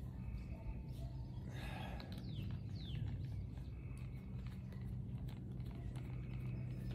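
Outdoor ambience: a few short descending bird chirps about two and a half seconds in, over a steady low hum, with faint scattered clicks.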